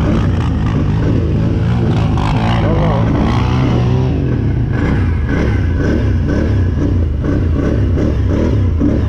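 Can-Am 1000's V-twin engine running under varying throttle.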